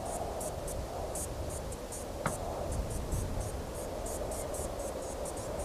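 Insects chirping in short, high-pitched pulses, several a second, over a steady low rumble of outdoor ambience, with a single faint click about two seconds in.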